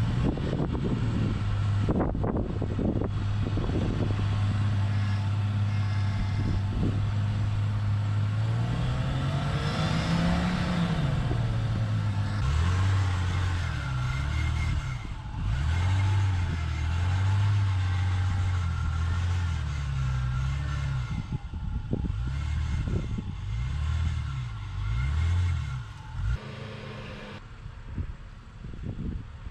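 Off-road four-wheel-drive's engine running under load. Its pitch rises in a rev about a third of the way in, then keeps rising and falling as the throttle is worked, with a few knocks in the first few seconds.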